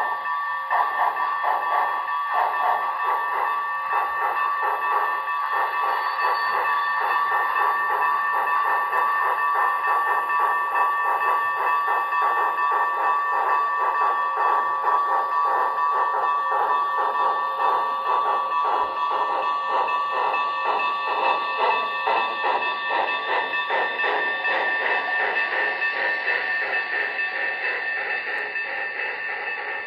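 HO scale model of the Union Pacific Big Boy 4014 steam locomotive running past with a train of freight cars: a dense, fast rhythm of chuffing and wheel clatter over a steady high whine, easing slightly near the end as the locomotive moves off.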